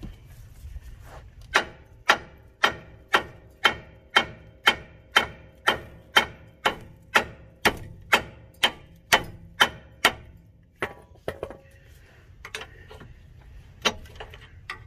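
Hammer blows on steel while separating a Subaru Legacy's lower ball joint from the lower control arm: a steady run of sharp strikes, about two a second for some eight seconds, then a few scattered blows near the end.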